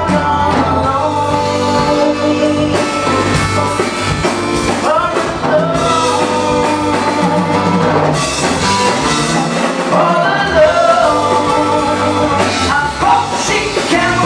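Live progressive rock band playing: electric guitar, bass guitar, keyboards and drum kit together.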